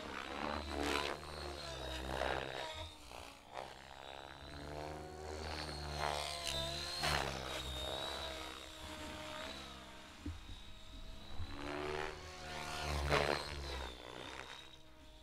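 Radio-controlled aerobatic helicopter flying a 3D routine: a high steady whine under rotor noise whose pitch glides up and down, with loud blade whooshes swelling and fading several times as it manoeuvres.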